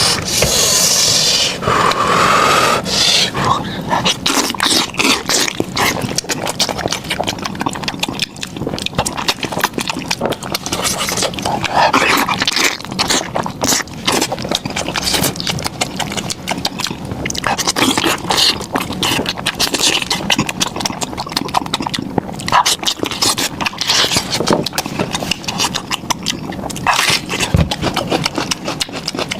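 Close-miked eating of beef trotter: a continuous run of wet chewing, lip-smacking and sucking clicks.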